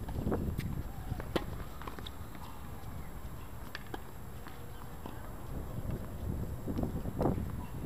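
Tennis rally on a hard court: a few sharp pops of racket strikes and ball bounces, spaced irregularly, over a low rumble of wind on the microphone.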